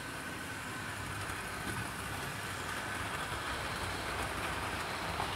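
OO-gauge model trains running on sectional track: a steady rumble of wheels on the rails with a faint, even motor whine, as the Hornby Railroad Midland Compound 4-4-0 passes hauling its coaches.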